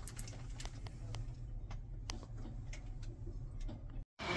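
Faint scattered ticks and clicks at uneven spacing over a low steady hum. The sound drops out completely for a moment near the end.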